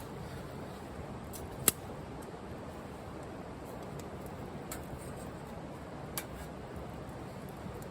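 Wood fire burning with a steady hiss and occasional sharp pops from the burning wood, the loudest pop about a second and a half in and two smaller ones later.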